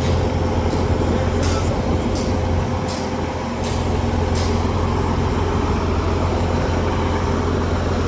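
A Mack concrete pump truck's diesel engine running steadily to drive its Schwing pump: a steady low hum with a constant tone above it. Over the first half, six short hisses come about every three-quarters of a second.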